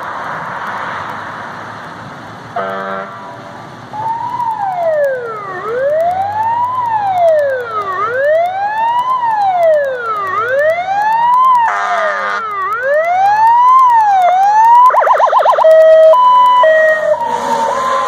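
Fire rescue engine's siren wailing, rising and falling about every two and a half seconds and growing louder as it approaches, with short horn blasts near the start and about two-thirds through. Near the end the siren switches to a fast yelp and then alternating steady tones as the truck draws level.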